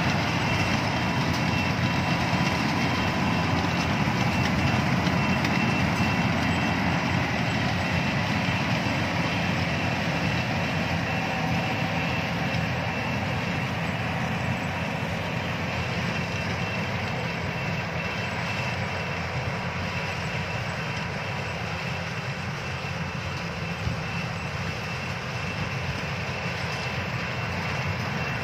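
Yanmar rice combine harvester running as it cuts and threshes ripe rice: a steady engine-and-machinery drone with a faint high whine, slowly growing fainter as the machine works away.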